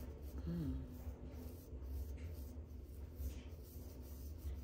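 Fine-tooth plastic comb scratching through short hair against a dry, flaky scalp in repeated strokes, close to the microphone. A low steady hum runs underneath.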